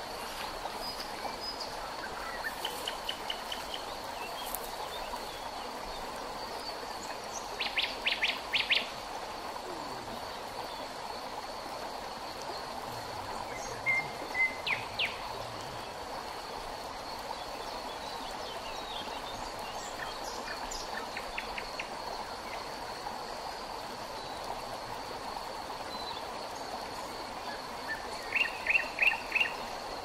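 Steady rush of a shallow river running over stones, under a thin steady high insect trill. Birds call over it in short runs of four or five quick chirps, loudest about a quarter of the way in and again near the end.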